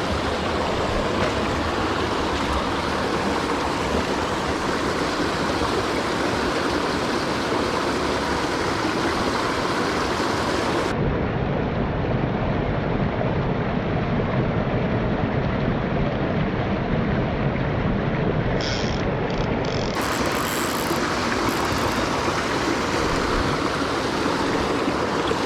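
Mountain stream rushing steadily over rocks, a continuous wash of water noise.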